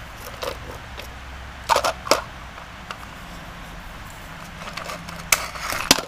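Plastic knocks and clicks as a black plastic shipping stand is worked off an e-bike's front fork dropouts: a pair of sharp knocks about two seconds in and two more near the end.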